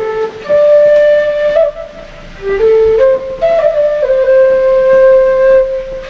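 Bamboo transverse flute (bansuri) playing a slow Pahari folk melody: long held notes joined by short stepwise runs, with a brief pause for breath about two seconds in.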